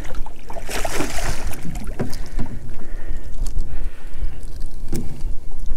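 Scattered knocks and clatter of handling on a small fishing boat, over a steady low rumble of wind on the microphone.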